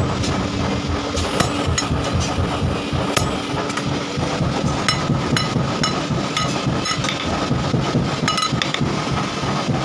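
Hammer blows on steel held on a small anvil: irregular metallic strikes, roughly two a second, each with a short ringing clink. The steel is a piece of drive shaft being forged into a rebar bender. A steady low rumble runs underneath.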